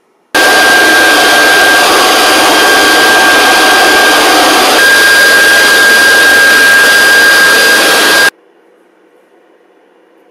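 Home-built turbocharger-based gas turbine running fast and loud: a dense rush of air with a steady high-pitched whistle. It cuts in suddenly and cuts off suddenly about eight seconds later, and the whistle shifts slightly about halfway through.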